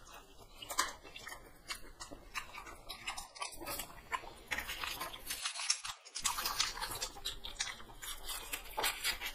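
Close-up chewing and biting of fried chicken leg pieces and an egg roll by two people, a run of irregular small mouth clicks and smacks.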